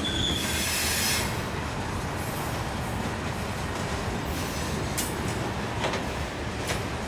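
Freight train of covered hopper cars rolling past close by: a steady rumble of wheels on rail, with a brief high wheel squeal at the very start and two sharp clicks about five and six seconds in.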